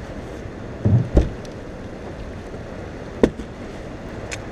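Steady rush of water and wind around a boat, with two dull thumps about a second in and a single sharp knock about three seconds in.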